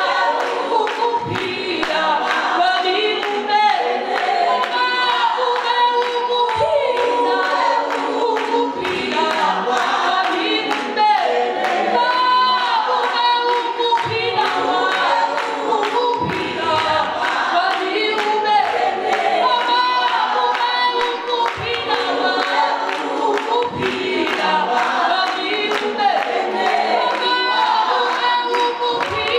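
A woman singing a worship song into a handheld microphone, with other voices singing along and no instruments.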